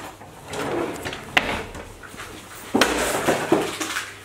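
Kitchen cutlery drawer being handled: a sharp knock about a second and a half in, a louder knock near three seconds, then a few small clicks.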